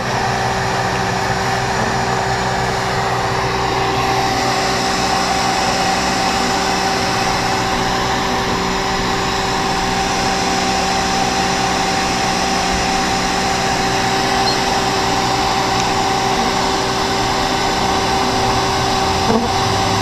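Bee vacuum motor running steadily, its hose sucking honey bees out of the hive cavity; an even motor noise with a steady whine.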